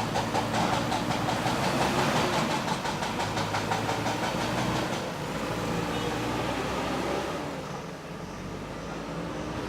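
JCB 3DX backhoe loader's diesel engine running steadily, with a fast, even clatter over it for the first five seconds or so that then fades away.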